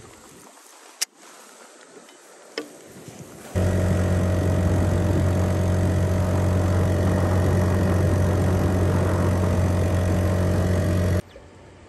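Small 2-horsepower outboard motor running at a steady speed. It cuts in suddenly about three and a half seconds in and stops abruptly near the end. Before it, there is only quiet with two sharp clicks.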